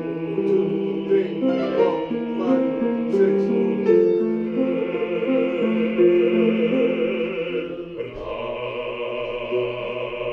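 Mixed choir of men and women singing a passage in parts: a run of changing held notes, then long notes with vibrato, and a new sustained chord about eight seconds in.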